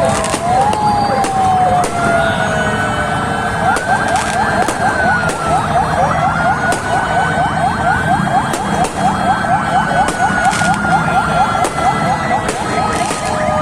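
Several ambulance sirens sounding at once, some wailing in slow rising and falling sweeps and others yelping in fast repeated rises several times a second. Sharp fireworks bangs go off now and then among them.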